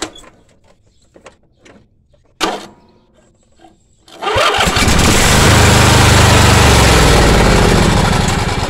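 A few faint clicks and a sharp knock, then about four seconds in the Briggs & Stratton engine of a Craftsman LT1000 lawn tractor cranks and starts, runs loud and steady, and begins to die away near the end.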